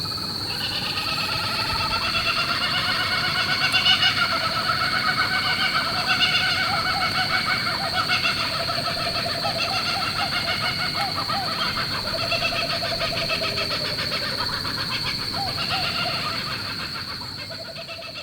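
Several birds calling and singing at once in a dense, warbling chorus over a steady high-pitched hum, fading out near the end.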